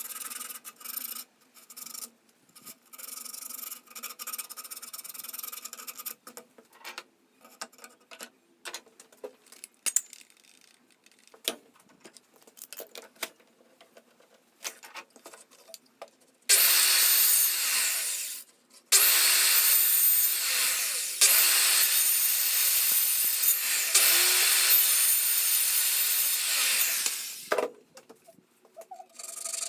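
A tool working a pine board by hand. Light, broken scraping and scattered small knocks are followed, about halfway through, by four long, loud rasping strokes of two to three seconds each.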